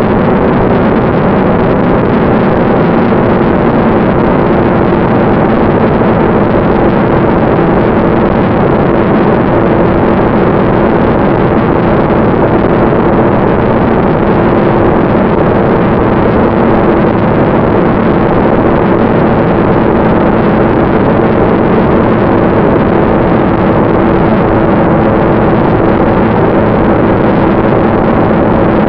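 Ducted fan of a radio-controlled BD-5 model jet running at steady power in flight: a loud, even whine over a dense hiss. The pitch sags slightly near the end.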